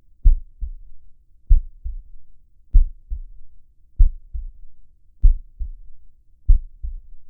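Slow heartbeat: low, soft double thumps (a lub followed closely by a quieter dub) repeating steadily about once every second and a quarter, six beats in all.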